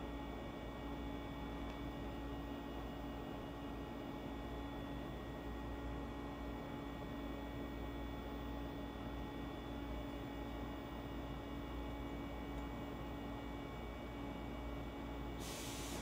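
Steady electrical hum with a few faint, thin steady tones above it, and a short hiss just before the end.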